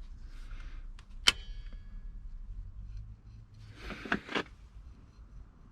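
Hand-tool work with locking pliers (mole grips) clamped on a snapped, seized bolt stub: one sharp metallic click with a short ring about a second in, then two duller knocks around four seconds in.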